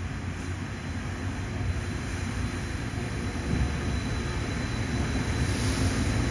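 Rubber-tyred Taipei Metro Wenhu line automated train pulling into the station, its tyres and running gear giving a low rumble that grows louder as the cars roll past close by. A faint steady high whine runs under it.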